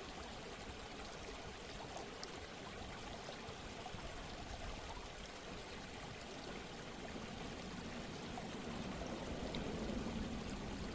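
Steady, soft sound of running water, like a flowing stream, growing a little louder near the end.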